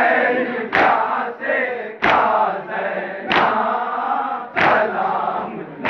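A group of men chanting a nauha, a Shia mourning lament, together, with unison matam: hands striking chests in one sharp slap about every second and a third, five times.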